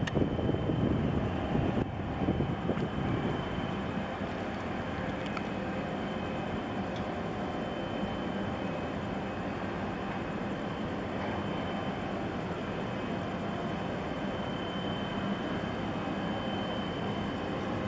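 Steady low drone of a large container ship's machinery as it passes close by under way, with a faint hum in it. Wind buffets the microphone in the first couple of seconds.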